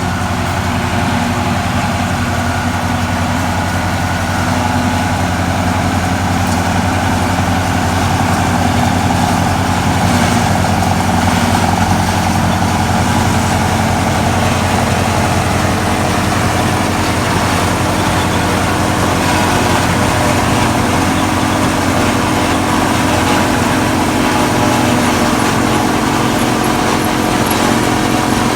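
Tractor engine running steadily with a forage chopper working silage.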